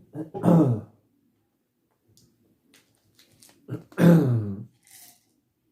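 Two short wordless vocal sounds from a person eating, one about half a second in and one about four seconds in, each falling in pitch, with faint chewing clicks between them.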